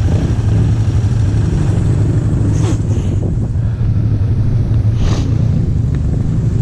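ATV engine idling steadily with a low, even drone. Two brief hissing noises come about two and a half and five seconds in.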